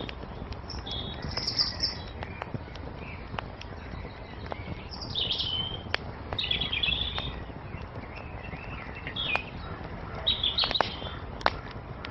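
Small birds chirping and twittering several times, over a wood fire crackling with scattered sharp pops and a steady low rumble.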